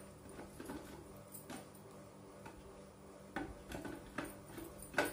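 Light clicks and taps of a stainless-steel mixer-grinder jar being handled on its motor base, with a sharper knock near the end.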